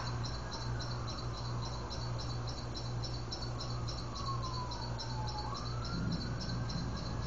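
Outdoor tornado warning siren wailing, its pitch falling slowly over several seconds and then rising again. Insects chirp in a steady fast rhythm over a low steady hum.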